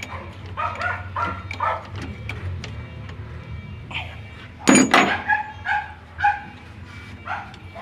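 A dog barking repeatedly in short barks, the loudest about five seconds in, over a steady low hum.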